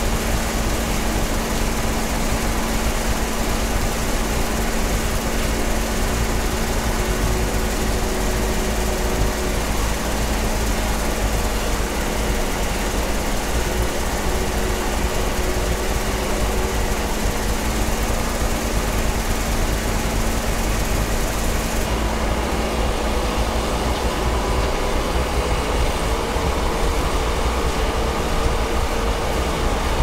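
John Deere combine running steadily while harvesting soybeans: a continuous engine-and-machinery drone with a steady hum. About two-thirds of the way in, the sound turns duller and loses its hiss.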